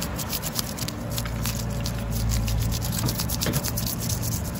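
Komatsu mini excavator's diesel engine running steadily, its low note swelling from about a second in and easing a little later as the arm swings, with many small clicks and rattles throughout.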